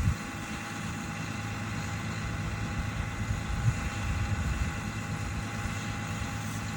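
Farm tractor engine running steadily at a low idle, with a few low knocks.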